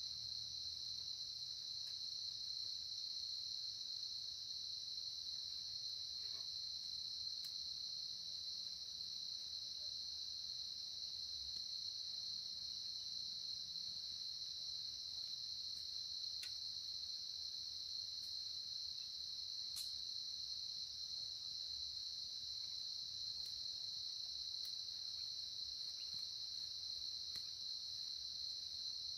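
Steady, high-pitched insect chorus, unbroken throughout, of the kind crickets make, with a few faint ticks scattered through it.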